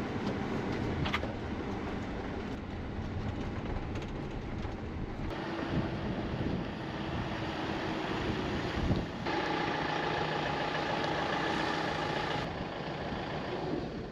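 Volkswagen Grand California 600 camper van on the move: steady engine and road noise with some wind, changing abruptly a few times.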